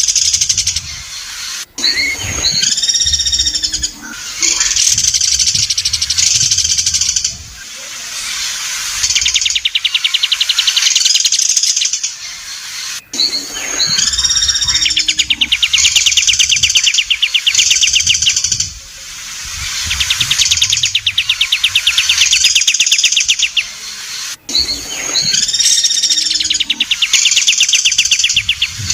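Songbird singing: fast buzzy trills and loud harsh, chattering phrases. The same sequence of phrases repeats about every eleven and a half seconds, a looped masteran recording for training contest songbirds.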